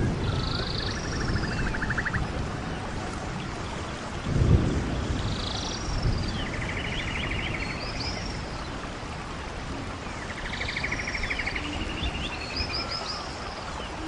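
Rainforest ambience: a steady rush of falling water and rain, with birds repeatedly giving short high whistled calls and pulsed trilling calls. A brief low rumble comes about four and a half seconds in.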